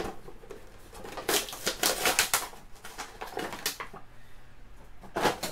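Action figure packaging being handled and opened, cardboard box and clear plastic blister tray: a run of crackling clicks and rustles, densest from about a second to four seconds in, with another burst near the end.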